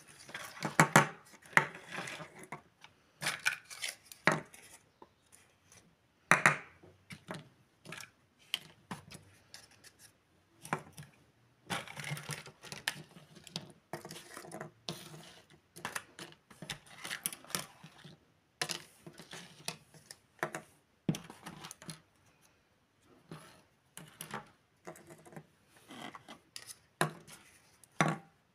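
Light plastic toy tea-set pieces (cups, saucers, plates, spoons and forks) being picked up and set down on a tabletop, making irregular clicks and clacks as they knock against the table and each other.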